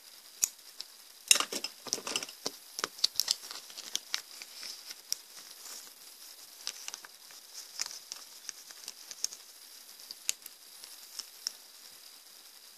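Close handling noises from hands working with a plastic bag and clay on a tabletop: crinkles, taps and clicks, a dense cluster about a second in lasting two seconds, then scattered ticks.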